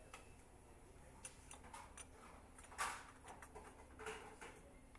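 Faint, scattered clicks and light metallic clinks of parts being handled as camshaft adjusters with toothed drive gears are fitted onto an engine's cylinder head. The loudest clink comes just under three seconds in.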